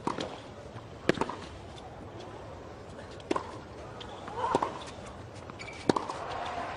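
Tennis rally: sharp pops of rackets striking the ball, with ball bounces on the hard court, about one every one to two seconds, over a quiet crowd. A short vocal sound comes with some of the shots.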